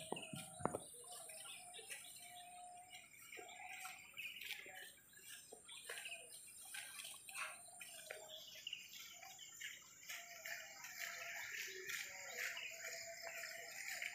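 Birds chirping and calling in short, scattered notes. There are a couple of sharp clicks in the first second.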